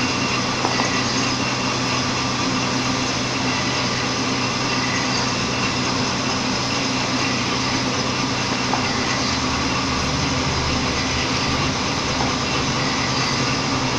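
Roller pasting machine for book binding running continuously, a steady mechanical hum with no change in speed.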